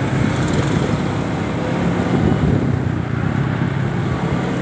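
Motor scooter running steadily while being ridden, its engine hum mixed with road noise, heard from the rider's seat.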